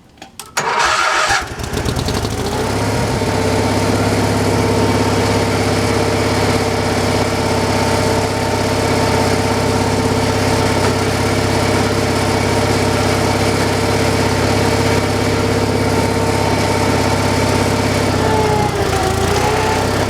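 Small gasoline engine of an old slab wood saw starting up, catching within about a second and a half, then running steadily. Its pitch dips briefly near the end and recovers.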